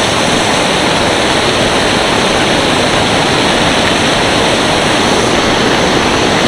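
Steady rushing of a nearby waterfall, an even loud wash of water noise with no breaks.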